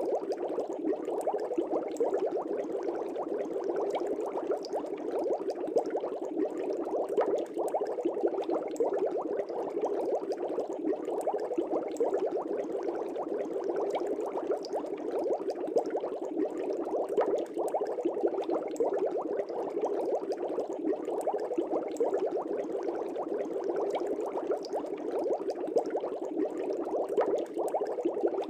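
Air bubbles rising in a fish tank: a steady, dense bubbling made of many small pops, with no change throughout.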